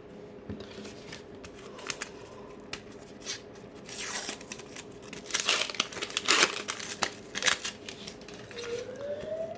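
Paper sticker packets being torn open and their wrappers crinkled. The crackling comes in irregular bursts and is densest in the middle.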